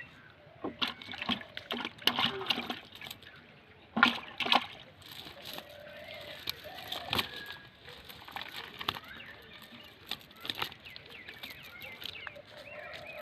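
Water splashing and sloshing in irregular bursts, the loudest pair about four seconds in.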